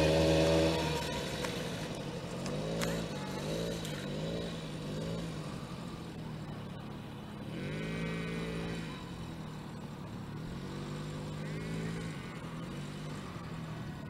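Suzuki LT50 quad bike's small two-stroke single-cylinder engine, loud for the first second and then quieter and farther off, its revs rising and dropping back again and again as the throttle is worked.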